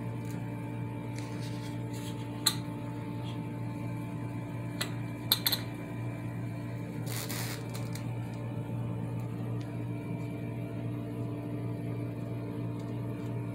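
A steady low machine hum, with a sharp click about two and a half seconds in, a quick cluster of clicks a little after five seconds, and a brief rustle around seven seconds.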